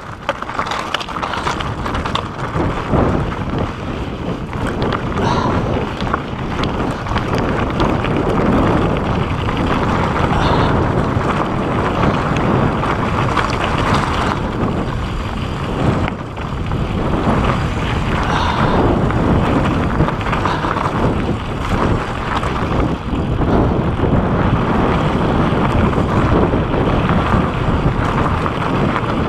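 Wind rushing over the microphone with the rattle and clatter of a mountain bike riding fast downhill over a rocky trail, with many small knocks as the wheels hit stones.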